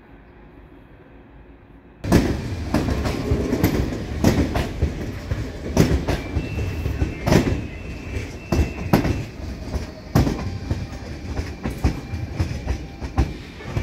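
A DSB S-train, an electric commuter train, passing close by, its wheels clattering over the rail joints and points in a quick irregular run of clicks and knocks over a rumble. The sound starts suddenly about two seconds in, with a thin high whine through the middle of the pass.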